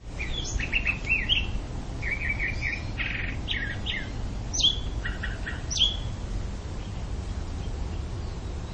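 Birds chirping and calling in quick runs of short notes, with two sharp downward-sweeping calls about halfway through, over a steady low background noise; the calls thin out in the last few seconds.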